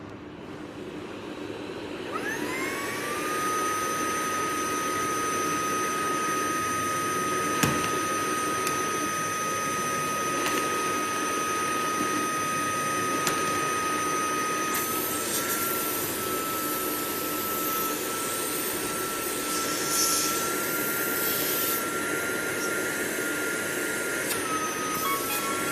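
Dust-collector vacuum with a brushless suction motor spinning up about two seconds in. Its whine rises, then settles into a steady high whine over a hiss of rushing air. A few light clicks sound, and about halfway through the hiss turns brighter and the pitch shifts a little.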